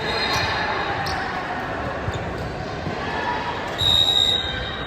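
Indoor volleyball game in an echoing sports hall: players' voices and the thud of the ball, then about four seconds in a referee's whistle blows once, a single shrill blast of about half a second.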